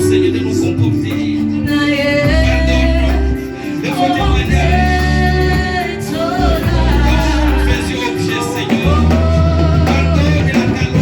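Church worship music: singing over held low bass notes and instruments, with the voice coming in about two seconds in.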